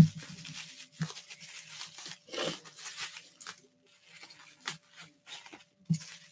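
Packaging being handled and opened: short rustles and tearing sounds, about one a second.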